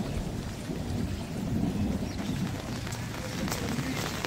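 Rain falling steadily on wet lanes and walls, with a low continuous rumble underneath and a few faint drip ticks.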